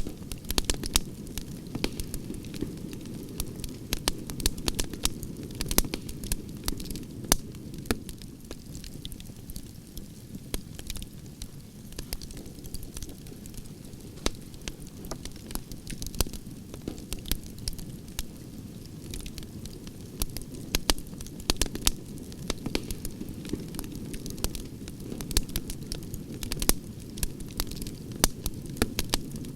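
Wood campfire of burning logs crackling, with many irregular sharp pops and snaps over a steady low rumble of the flames.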